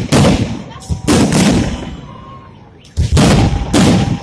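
Fireworks shells bursting overhead: four loud bangs in two pairs, each dying away over about half a second to a second.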